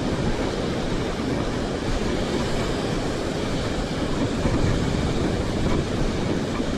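Steady low rumbling wash of ocean surf, with wind buffeting the microphone.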